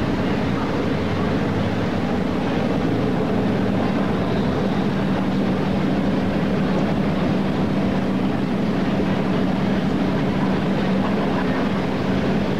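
A large ship under way heard from its open deck: a steady rushing noise with a low, constant hum from the ship's machinery that grows stronger a few seconds in.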